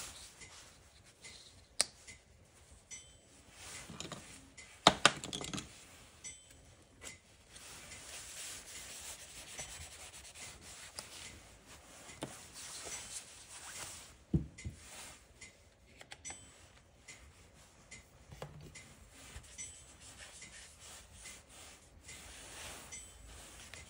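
Drawing tools rubbing and scratching across sketchbook paper as marks are scribbled and smeared in. A few sharp knocks break in, the loudest about five seconds in.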